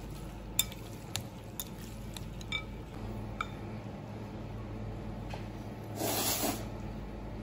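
Chopsticks clicking and lightly ringing against a glass bowl as noodles are tossed, a handful of taps in the first few seconds. About six seconds in comes one loud, half-second slurp of noodles.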